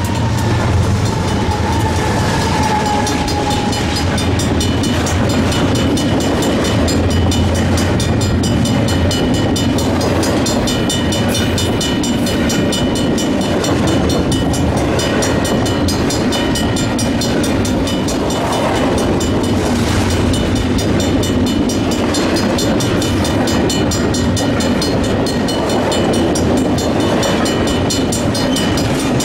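Double-stack intermodal freight train rolling past close by: steady wheel-on-rail noise with some clickety-clack, and a low diesel locomotive hum that fades after the first few seconds as the engines go by. Mechanical grade-crossing bells ring rapidly and steadily over the top.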